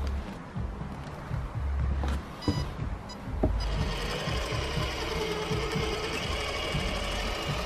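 Electric drive motor and gearbox of a Traxxas TRX-4 radio-controlled crawler whining as it drives across a wooden deck, over a low rumble with scattered knocks. About three and a half seconds in, the whine becomes louder and fuller and stays steady.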